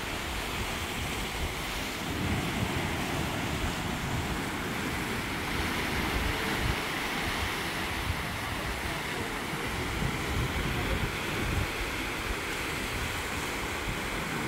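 Sea waves breaking and washing against basalt column rocks, a steady rushing surf, with wind gusting on the microphone.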